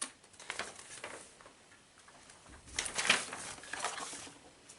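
Paper rustling and crinkling in short bursts, with a louder flurry about three seconds in, as the pages of a printed quick-start guide are leafed through.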